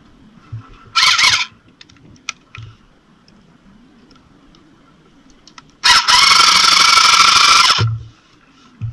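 A handheld electric power tool runs in a short burst about a second in, then for about two seconds near the end, with a high motor whine.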